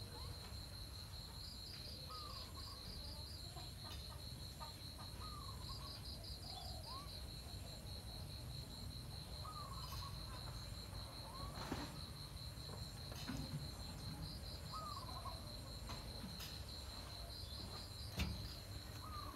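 Insects trilling steadily in a high pulsing chirr, with short hooked animal calls every second or two and a sharp knock near the end.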